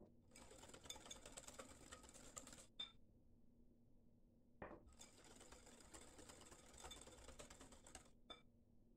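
Faint, rapid clicking and scraping of a metal wire whisk beating liquid cake batter in a glass bowl as vegetable oil is mixed in. Two spells of whisking with a pause between them, and a couple of short knocks of the whisk against the bowl.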